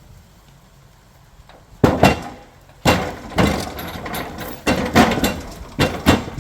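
Heavy sawn timber being shifted by hand: a run of loud wooden knocks and thumps, starting about two seconds in.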